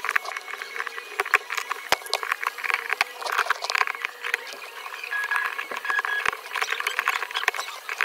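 A metal tool working broken back-glass and adhesive residue off an iPhone 13 Pro Max frame, giving an irregular scratchy crackle with scattered sharp clicks.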